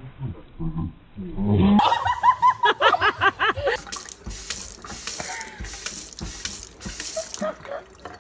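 Kitchen faucet running into a stainless steel sink, splashing as a baby sitting in the sink plays in the stream. From about two to three and a half seconds in, high rising-and-falling voice sounds run alongside it, which the baby in the sink may be making.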